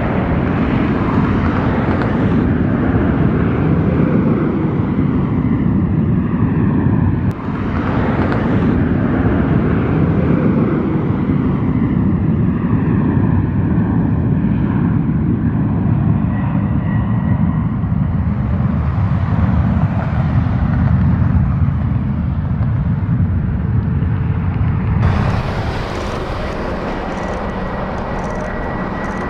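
Jet airliner engine noise, a loud, steady deep rumble with a hiss on top. The sound cuts abruptly about seven seconds in and again a few seconds before the end, where it turns thinner and quieter.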